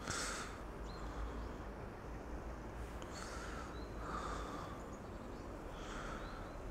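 A person breathing close to the microphone, a string of short breaths every second or two, over a low steady rumble.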